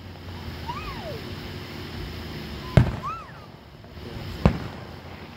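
Aerial fireworks shells bursting at a distance: two sharp bangs about a second and a half apart, the first the louder.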